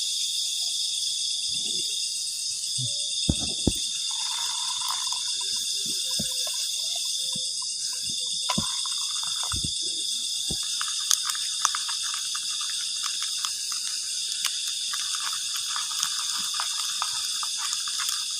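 Steady night chorus of crickets and other insects, with a few scattered knocks and, in the second half, a patter of light crackling clicks.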